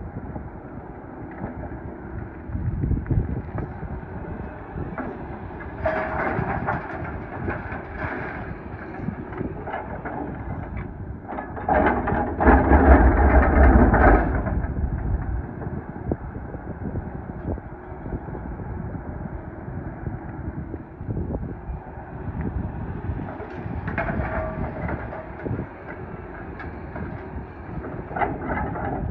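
Doosan DX420LCA excavator's diesel engine and hydraulics working while loading gravel, heard from the cab: a steady running noise that grows louder around six seconds in, again near the end, and loudest with a deep rumble for a couple of seconds around the middle.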